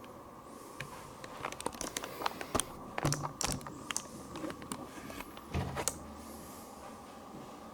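Handling noise from a clip-on wireless microphone being fixed to a shirt with its magnet: a flurry of small clicks and fabric rustles with two dull thumps, over a faint steady hum.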